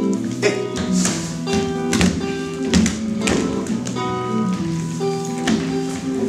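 Guitar played live, with held notes changing every half second or so, and sharp percussive taps through the music at irregular intervals.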